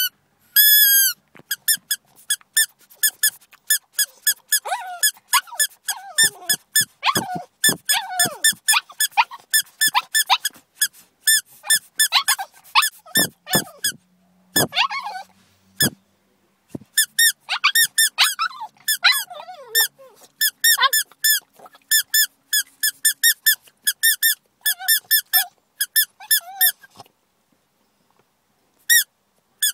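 Boston Terrier puppy whining in a long run of short, high, squeaky whines, several a second, with some lower, falling whimpers mixed in. The whining stops briefly near the end.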